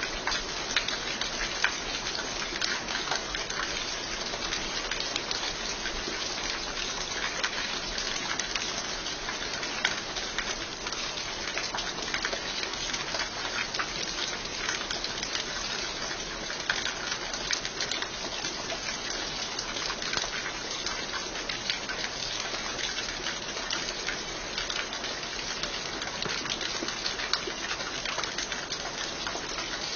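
Steady heavy rain falling, a dense hiss with many sharp drops pattering on surfaces.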